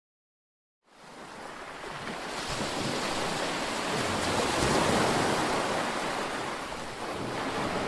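After about a second of silence, a rushing wash of noise like surf or wind fades in, swells through the middle and eases off slightly near the end, leading into a song's intro.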